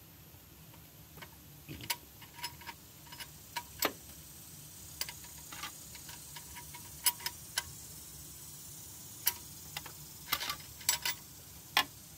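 A 22 mm wrench clicking against an upstream O2 sensor's hex and the steel exhaust manifold while the sensor is being unscrewed. The metal ticks come irregularly, some singly and some in quick clusters.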